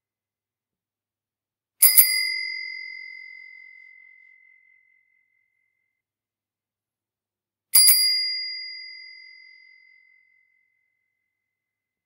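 Bicycle bell rung once, and again about six seconds later. Each ring is a sharp metallic strike followed by a clear high tone that fades out over two to three seconds.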